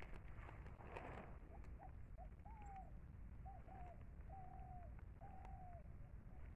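A bird calling faintly: a few short notes followed by several longer, drawn-out notes that slur downward at the end.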